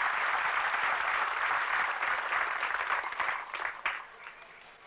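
Audience applauding, a dense round of clapping that thins into scattered claps and dies away near the end.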